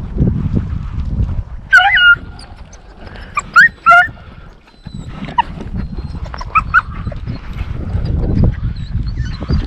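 Hunting dogs whining and yipping in short, high-pitched calls, several separate bursts, over a low rumble.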